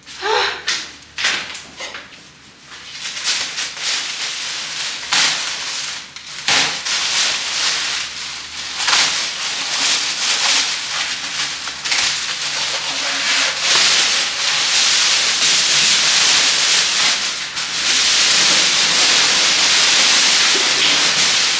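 Fridge packaging being stripped off: plastic and cardboard rustling, rubbing and scraping in irregular strokes, turning into a steady loud rasping hiss for the last several seconds.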